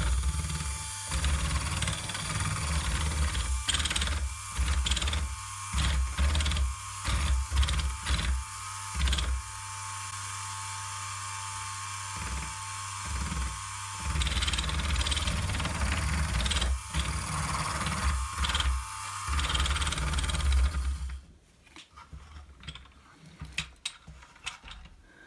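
Small electric motors in the rear axles of a Bruder John Deere 9620RX RC conversion whirring through their plastic gearboxes on a test run, after burrs that made the parts rub were filed off. The whir swells and drops in uneven louder stretches and stops about 21 seconds in.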